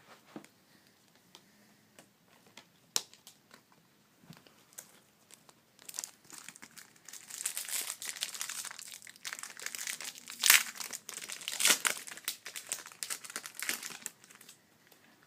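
A foil trading-card pack wrapper being torn open and crinkled, after a few light clicks. The crinkling starts about six seconds in and is loudest in two bursts in the second half.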